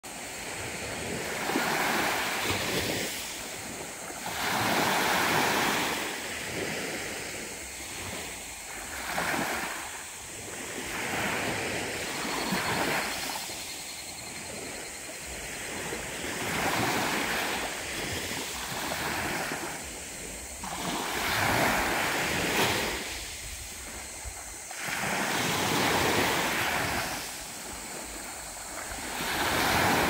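Small waves breaking and washing up a sandy beach, a surge swelling and fading every few seconds. A faint, brief pulsed call of a higurashi (evening cicada) comes about twelve seconds in.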